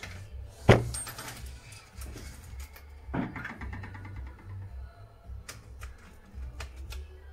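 Handling noise from a laser printer fuser unit being taken apart: a sharp knock a little under a second in, a duller knock around three seconds, then scattered light clicks of small plastic and metal parts, over a low rumble.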